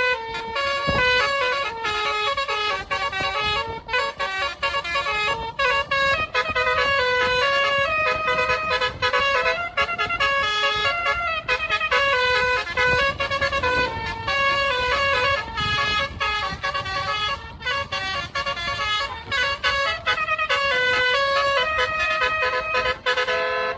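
Indonesian bus's multi-tone 'telolet' horn playing a long melodic run of short horn notes that jump quickly from pitch to pitch, with brief gaps between phrases, over a low rumble.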